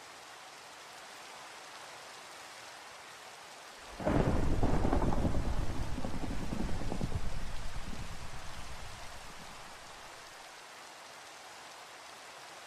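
Steady rain with a sudden thunderclap about four seconds in, its rumble rolling on and dying away over the next five seconds or so.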